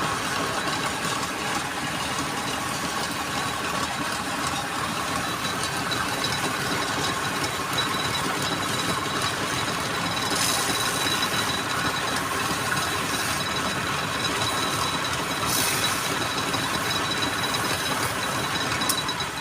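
Wood lathe running steadily with a tool cutting the spinning wood, giving a dense grinding noise with a thin high whine. It stops at the end.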